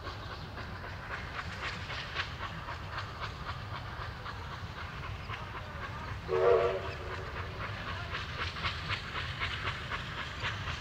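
Victorian Railways R class 4-6-4 steam locomotive R761 working a train, its exhaust beating in a quick, even rhythm, with one short, loud whistle blast about six seconds in.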